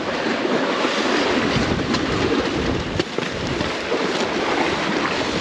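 Strong gale wind buffeting the microphone over the steady rush of sea surf against the rocks.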